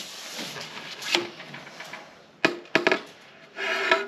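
Carbon carp pole sections being handled and fitted together: a few sharp clicks and knocks, then a short rubbing slide of one section into another near the end.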